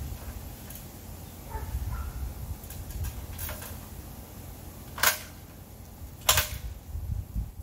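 Aluminium ladder being handled: a few faint knocks, then two sharp metallic clacks about a second apart near the end, over a low rumble of wind on the microphone.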